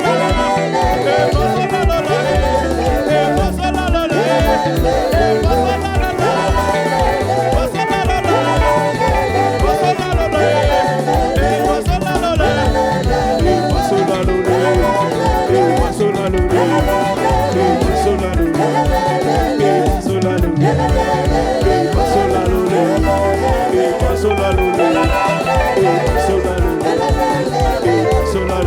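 Live gospel praise band playing with a steady bass beat, with singing voices over it.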